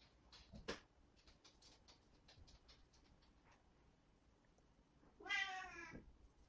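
Soft faint ticks and one click from a makeup brush working on the cheek, then a house cat meows once, briefly, about five seconds in.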